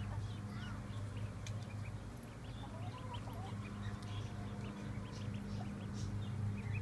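Ducklings peeping in many short, high chirps, with a few quacking calls, over a steady low hum.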